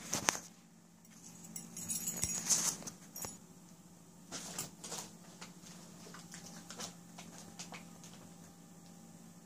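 Light metallic jingling with scattered clicks, busiest about two to three seconds in and again briefly near the middle, over a steady low hum.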